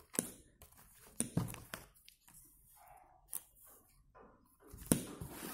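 Handling noise: a few faint, sharp clicks and short rustles as the paper on a clipboard is moved about, the sharpest click near the end.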